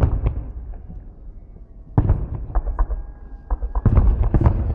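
Festive fireworks salute shells bursting in the sky. One sharp bang comes at the start and another about two seconds in, then a quick cluster of bangs near the end, with crackling and rumbling between them.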